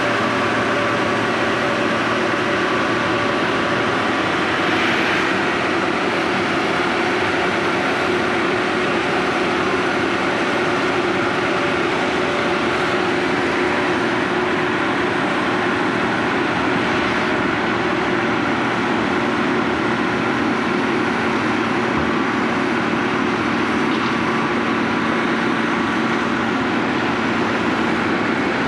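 XCMG XM1003K cold milling machine running steadily: a constant loud mechanical din with several steady tones held through it.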